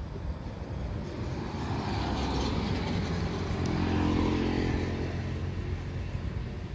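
A motor vehicle passing by: engine and road noise that swell over the first few seconds, peak about four seconds in, then fade away.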